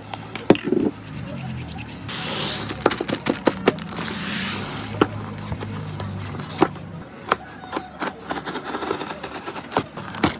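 A parcel's plastic packaging being handled and opened: many sharp clicks and crinkles, with two short ripping sounds about two and four seconds in, over background music.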